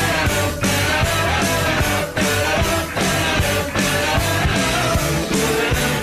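Loud rock music with a steady driving beat, played as a hockey team's goal song.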